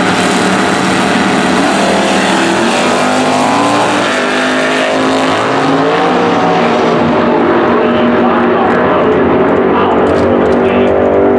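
Two drag-racing muscle cars launching side by side at full throttle, the engine pitch climbing and dropping back at each gear change as they pull away down the strip.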